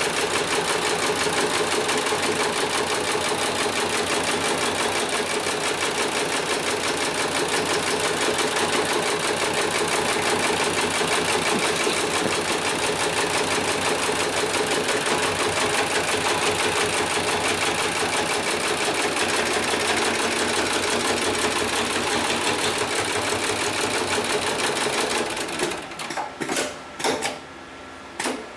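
HIGHTEX 7273CNC heavy-duty programmable pattern sewing machine running at speed, stitching through thick polyester lifting straps with a fast, steady rhythm. It stops near the end, followed by a few separate clicks and knocks.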